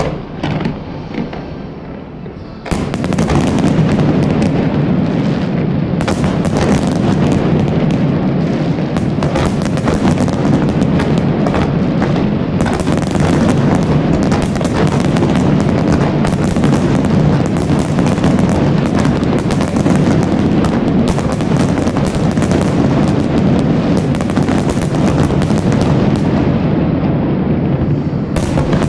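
Fireworks display: a few separate bangs at first, then about three seconds in a dense, continuous barrage of shell bursts and crackle starts suddenly and keeps going.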